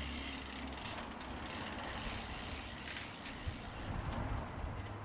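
Bicycle repair work: scattered mechanical clicks and ratcheting from bike parts and tools, over a steady hiss.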